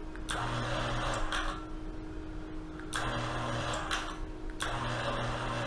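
A 110-volt linear actuator's motor running in three short pulses of about a second each, switched by a wireless remote's relay with a click at the start of each. These are the shortest jogs the key-fob relay setup will give.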